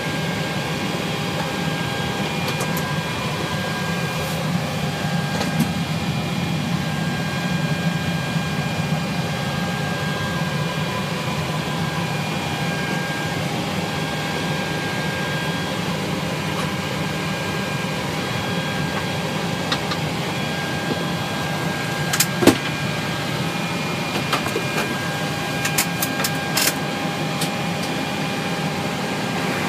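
Steady flight-deck noise of a Boeing 737-800 with its engines shut down: rushing air-conditioning and equipment-cooling airflow with a low hum and a steady high whine over it. A few sharp clicks come about three-quarters of the way through.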